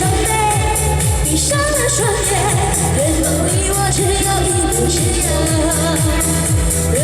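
Chinese pop music played loud, with a steady, even dance beat in the bass and a wavering melody line above it.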